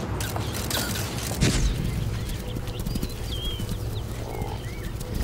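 Sharp clicks of press camera shutters for the first second or so. Then a herd of African buffalo: a low rumble and animal sounds, with small birds chirping a few times.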